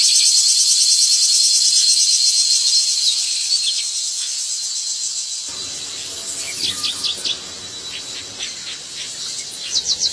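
Insects trilling in a dense, high-pitched chorus that fades and stops about halfway through. Open-air background noise follows, with a few short, high chirps.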